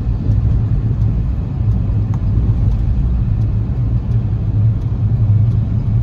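Steady low rumble of a moving car, engine and tyre noise heard from inside the cabin.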